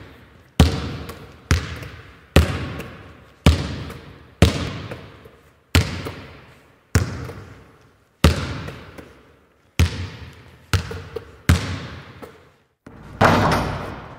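A basketball bouncing slowly on a hard gym floor, about one bounce a second at uneven spacing, each bounce ringing on in the hall's echo. Near the end comes a longer, hissier hit.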